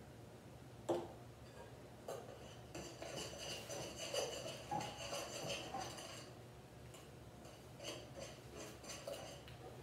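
Tabletop handling noise: a sharp knock about a second in, then a few seconds of rustling and clinking as a plastic bag, glue bottles and a glass bowl are handled, with a few small knocks near the end.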